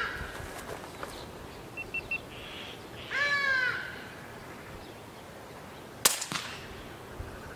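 A bird gives one loud, falling call about three seconds in. About six seconds in a suppressed .22 PCP air rifle, a Daystate Alpha Wolf, fires one sharp shot.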